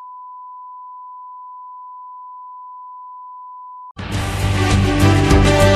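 A steady 1 kHz reference test tone that cuts off about four seconds in, replaced at once by louder theme music.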